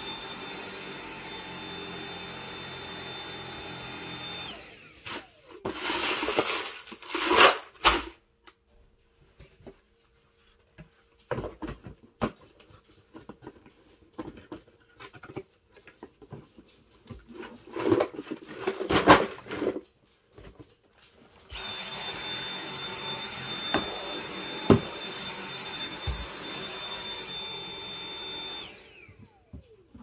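Dyson cordless stick vacuum running with a steady high whine, switched off about four seconds in and spinning down. Then loud rustling and knocks from boxes being handled on the carpet. The vacuum starts again a few seconds before the end, runs steadily for about seven seconds, and spins down.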